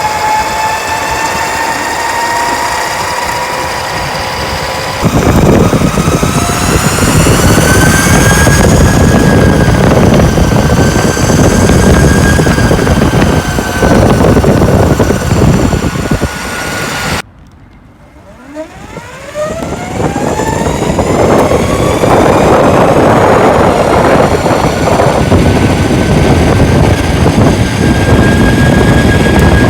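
Flipsky Lightning electric skateboard's motors whining while riding, the pitch drifting up and down with speed over heavy rushing wind and wheel noise. Around 17 seconds in the sound drops away suddenly, then the motor whine climbs steeply as the board accelerates again.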